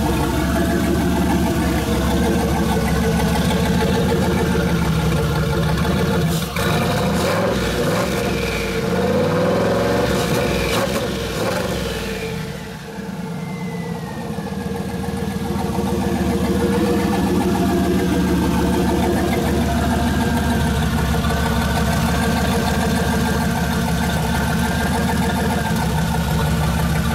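Turbocharged engine idling, with the turbo spooling at idle as a thin, high whistle over the engine note. Near the middle the engine note wavers and the whistle glides down in pitch, then holds steady.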